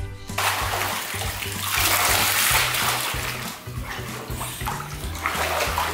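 Pool water splashing and sloshing as children swim, setting in suddenly just after the start and loudest about two to three seconds in. Background music with a steady bass line plays underneath.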